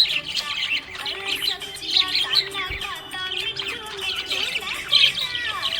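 Budgerigars chirping and warbling without pause, many quick high twittering calls overlapping, with louder bursts about two and five seconds in.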